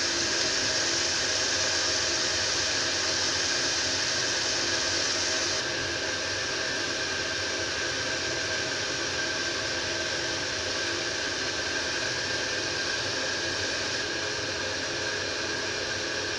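Purslane greens frying in oil in an aluminium pan, with a steady sizzling hiss and a faint steady hum beneath it. The hiss drops a little about five and a half seconds in.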